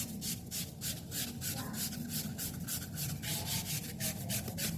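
Fine wet sandpaper rubbed by hand in quick back-and-forth strokes, several a second, along the metal motor shaft of an Arno 40 cm table fan. The shaft is being smoothed of light scratches and dirt marks so the bushing can turn freely.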